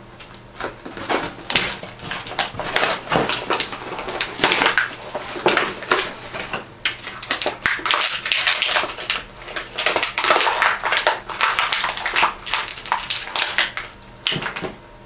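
Clear plastic blister packaging and its cardboard insert crinkling and crackling as toy tops are pushed out of it and handled, a busy run of irregular crackles that stops shortly before the end.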